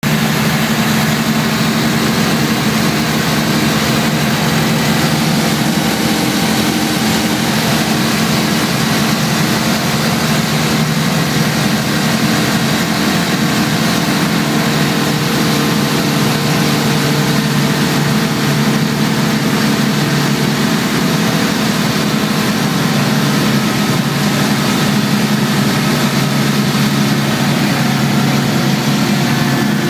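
Light aircraft's engine and propeller droning steadily in cruise flight at about 2,400–2,600 rpm, heard inside the cockpit with a constant rush of air noise.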